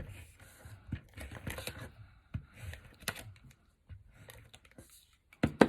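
Cardstock and paper being handled and pressed together on a tabletop while adhesive is applied: scattered light clicks and taps with soft paper rustle, the loudest a sharp tap near the end.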